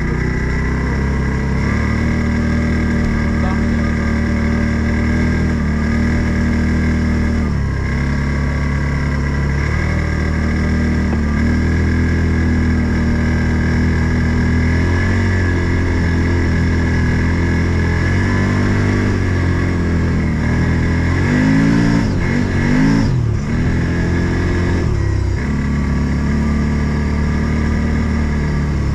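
Odes 800 off-road vehicle's engine running under way, its pitch shifting with the throttle, revving up and dropping back sharply about 22 seconds in, with a steady high whine over the engine note.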